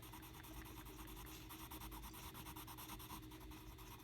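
Colored pencil shading on sketchbook paper: faint, quick scratchy strokes in rapid succession.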